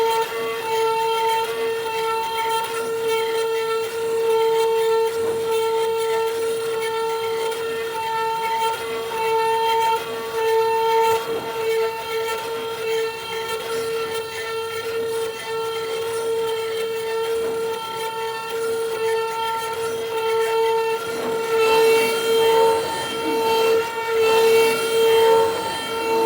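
CNC cutting machine running as it cuts sound-absorbing panels: a loud, steady, high-pitched mechanical whine with slight swells in level.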